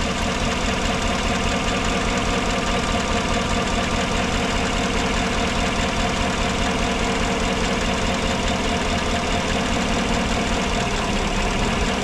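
A 2014 GMC truck's 5.3-litre V8 idling steadily while misfiring on cylinder three, where the faulty ignition coil now sits.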